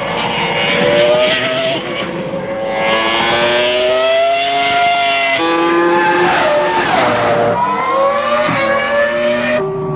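Ferrari F300 Formula One car's V10 engine at high revs, its pitch climbing and dropping sharply at each gear change, easing down briefly about two-thirds of the way through, then climbing again under acceleration.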